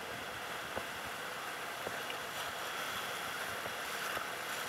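Steady rushing of whitewater rapids, an even hiss of churning river water around the raft.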